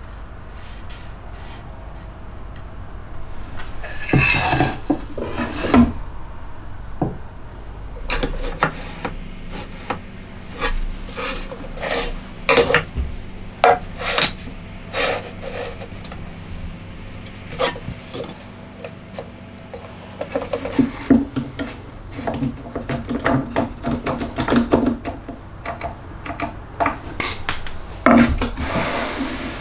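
Wooden workpieces being handled: a series of separate knocks and clicks, with scraping rubs of wood on wood or a hand sanding near the start, again in the second half, and once more near the end.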